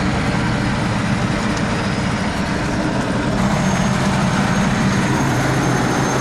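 Diesel tractor engine running steadily in a low gear. About halfway through it grows slightly louder and a thin high whine joins in.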